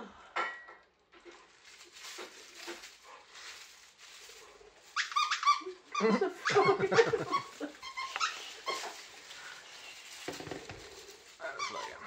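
Boxer dog vocalising in play as it mouths and tugs a plush toy monkey. Its calls come and go, loudest between about six and seven and a half seconds in, with short high calls just before that and again near the end.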